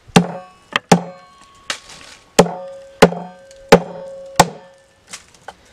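A homemade forged sword hacking repeatedly at a tree root, about eight hard blows in quick succession, several leaving the blade ringing briefly, then two lighter knocks near the end.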